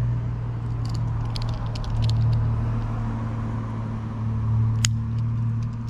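A steady low motor hum throughout, with light clicks of fishing line and tackle being handled about a second in, and one sharp snip near the end: line clippers cutting the tag end of a uni knot.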